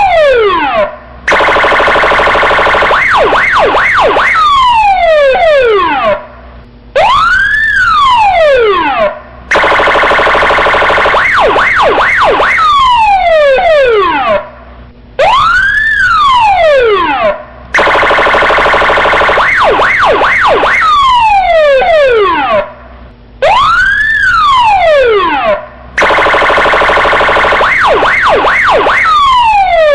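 Electronic police siren cycling through its tones: a steady buzzing horn tone with a few quick whoops, then a run of falling sweeps, then a rising-and-falling wail. The pattern repeats about every eight seconds, with short breaks between the tones.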